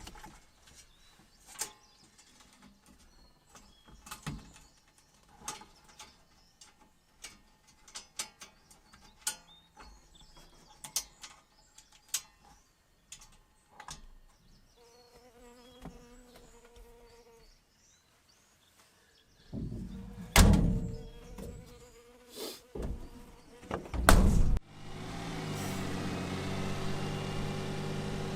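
Scattered light clicks and knocks, then a few heavy thumps. About 25 seconds in, a small vehicle engine starts and settles into a steady idle.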